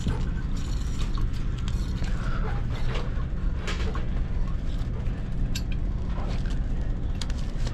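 Steady low machinery hum, with scattered light clicks and taps of a brass valve and pipe fittings being handled and spun onto a threaded pipe by hand.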